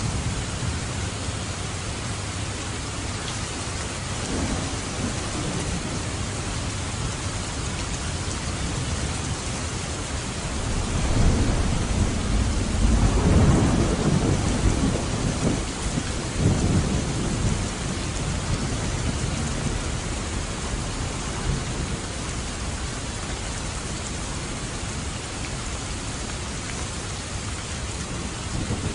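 Steady heavy rain with a long rumble of thunder swelling up about eleven seconds in and rolling away over several seconds, and a fainter rumble earlier.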